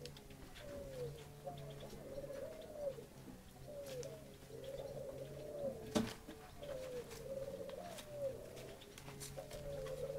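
Budapest feather-footed stork-marked pigeon cooing repeatedly in short, bending calls, with one sharp slap about six seconds in.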